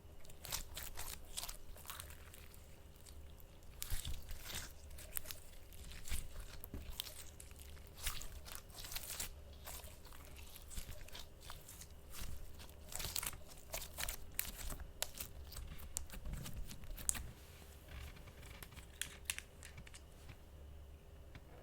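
Ink slime being squeezed and stretched by hand, making irregular crackling clicks and pops that come in clusters.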